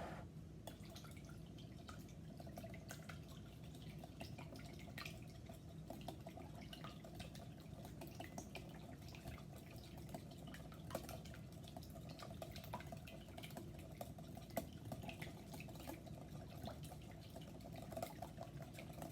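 A whisk beating a bowl of oil, water and vanilla: a faint, steady run of quick ticks and small liquid splashes.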